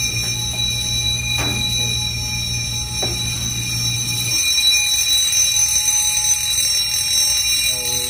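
Fire alarm bell ringing continuously with a steady high tone, set off by a smoke detector being tested. A low hum underneath cuts off about halfway through.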